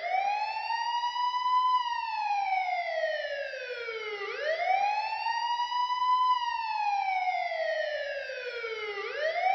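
Police siren wailing: the pitch rises over about a second and a half, then slides slowly back down, repeating about every four and a half seconds for two full cycles.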